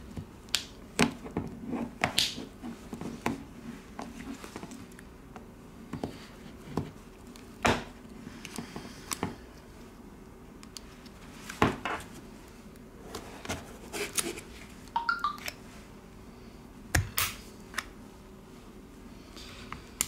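A thin steel iSesamo opening tool prying along the seam of a Xiaomi Redmi 7A's plastic back cover. Irregular sharp clicks and snaps come as the cover's clips let go, with light scraping of the blade between them.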